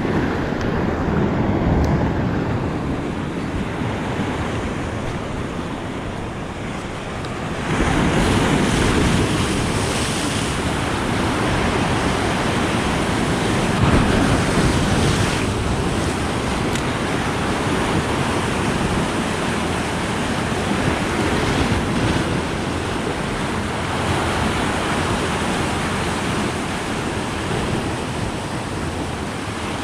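Open-sea surf breaking on rocks: a continuous wash of waves that swells louder about eight seconds in as a heavier set comes in.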